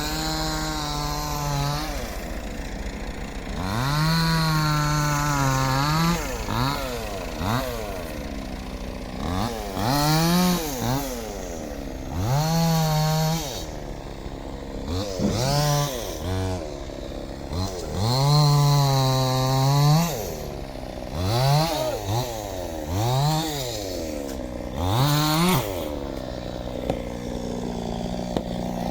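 Two-stroke chainsaw revved up and dropped back to idle again and again, about a dozen times. Several revs are held at full speed for a second or two, as the saw cuts into a neem tree.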